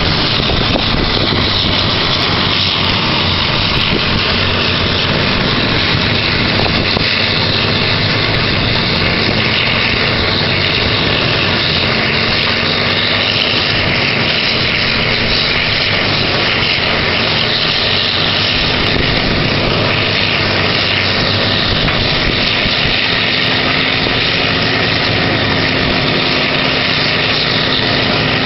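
A horizontal wood grinder and an excavator running together, making a loud, steady machinery noise with a constant low hum.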